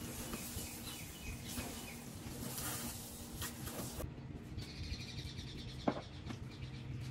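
Water from a garden hose splashing on a car for the first four seconds, with birds chirping in the background throughout. Near the end, a single sharp knock.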